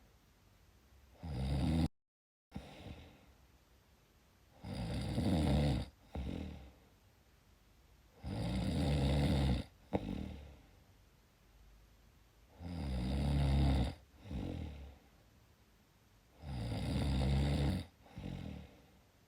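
Snoring: five low, rattling snores about four seconds apart, each lasting a second or more, most followed by a shorter, softer breath.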